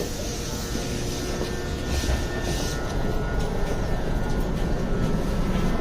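Subway train running: a steady low rumble that grows a little louder, with scattered clicks from about two seconds in.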